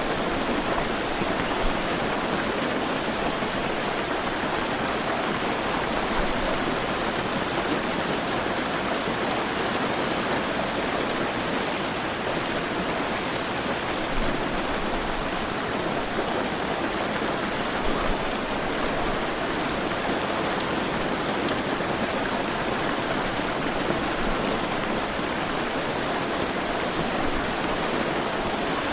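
Heavy rain falling steadily as a dense, even hiss, with a few slightly louder patters of drops here and there.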